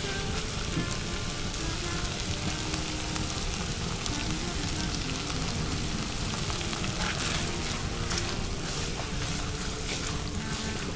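A quiet melody of held notes over a steady, even hiss.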